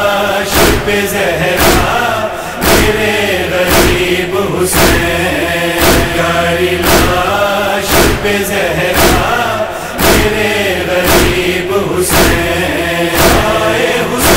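Noha lamentation: a chorus of men's voices chanting over a steady, evenly spaced percussive beat.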